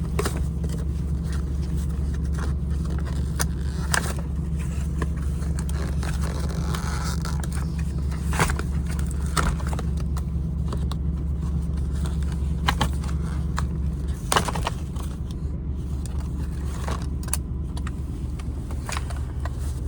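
Hiplok D1000 lock packaging being ripped open and handled: scattered scrapes and sharp clicks over a steady low hum that drops about fourteen seconds in.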